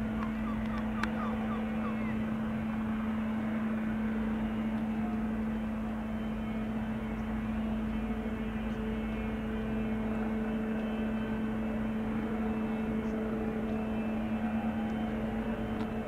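Airbus Helicopters EC135 twin-turbine helicopter hovering low: a steady turbine whine and rotor hum holding one constant pitch.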